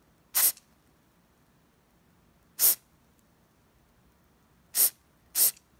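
Aerosol cleaner spray can fired in four short hissing bursts through a thin extension straw onto a tiny lens iris mechanism; the last two bursts come close together near the end.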